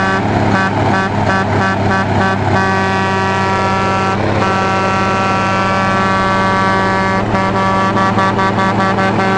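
Autocar truck's Cummins diesel engine running loudly with a rapid pulsing beat, about four or five a second. About two and a half seconds in it is held at one steady pitch, and near seven seconds the pulsing returns.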